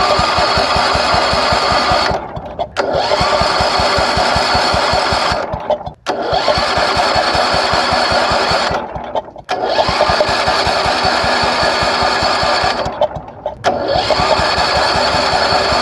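Wheel Horse lawn tractor engine cranked by its starter in about five long bursts, turning over with an even rapid beat but never catching. It will not start even with its ignition points freshly re-gapped.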